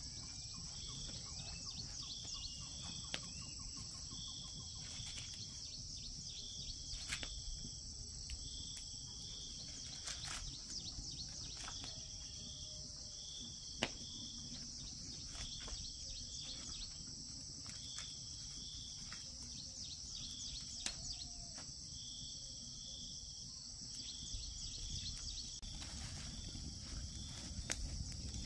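Steady, high-pitched chorus of crickets or cicadas, with short chirps repeating every second or two, often in pairs. Scattered sharp clicks and knocks come through, one louder about halfway and several near the end.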